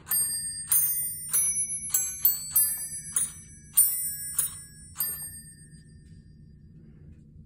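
Self-playing holiday glockenspiel striking a melody on its bells, about ten bright ringing notes of different pitches at roughly one every half second. The notes stop about five seconds in.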